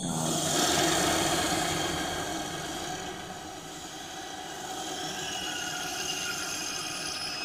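A steady low rumble like a vehicle engine running, with night insects shrilling high above it; it swells about a second in, then eases.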